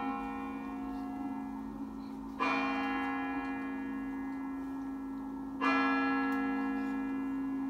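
The great bell of the Kremlin's Spasskaya Tower clock striking midnight: slow single strokes about three seconds apart, each one ringing on with a low hum until the next. A stroke is still ringing at the start, and two new strokes land about two and a half and five and a half seconds in.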